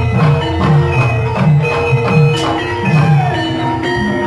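Live Javanese gamelan playing the dance accompaniment: bronze gong-chimes and metallophones ringing steady tones over a regular pattern of low drum strokes.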